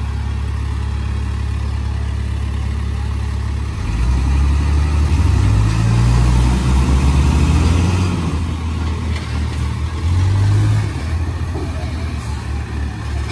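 Diesel engines of a heavy truck and a backhoe loader labouring as the loader pushes the loaded semi-trailer through mud. A steady low drone rises into hard revving about four seconds in and drops back near eleven seconds.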